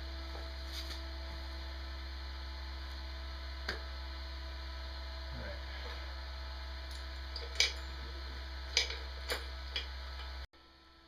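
A steady low electrical hum with a handful of light metal clicks and knocks from frame parts and bearing holders being handled; the hum cuts off abruptly near the end.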